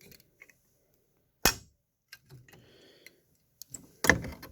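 Clicks and knocks from handling an MS-710U fire alarm pull station: one sharp click about a third of the way in, a few faint ticks, and a cluster of clicks near the end.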